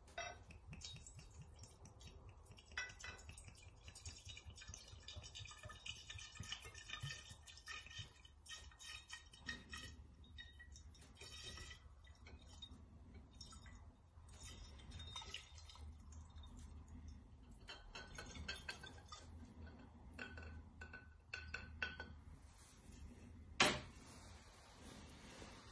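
Whisky pouring from a glass bottle into a cut-crystal decanter: irregular glugging and trickling with a light ringing of the glass. It ends in one sharp glass clink near the end as the bottle is set down.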